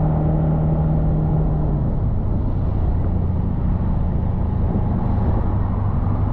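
Motorbike engine running steadily while riding, heard from the bike itself over road noise. Its pitch drops about two seconds in as the engine eases off.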